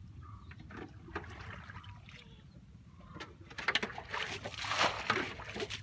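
Wet mud and muddy water squelching and sloshing as hands dig and grope through a muddy pond bottom for fish. The sound starts about three and a half seconds in and goes on as quick, irregular splashes.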